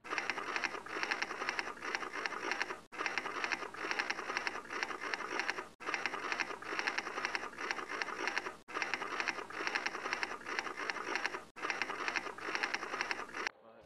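Typewriter sound effect: a rapid clatter of keystrokes in a short clip, looped five times with a brief break between loops.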